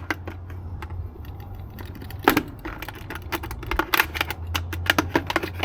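Irregular sharp clicks and taps of cut plastic bottle pieces being handled, over a low steady hum.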